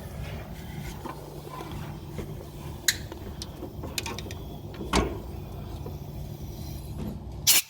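Scattered light mechanical clicks and rattles over a low steady hum, with a sharper knock near the end.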